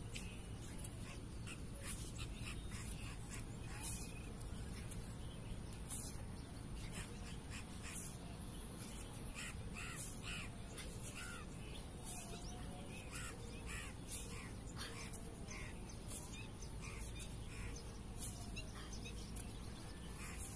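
A short sharp sound about every two seconds, in the rhythm of repeated pahalwani push-ups (dands), over a steady hiss. Birds call faintly in between.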